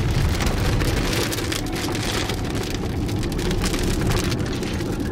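Rain hitting the windshield and roof of a moving car, heard from inside the cabin as a dense patter of drops over the car's low road rumble.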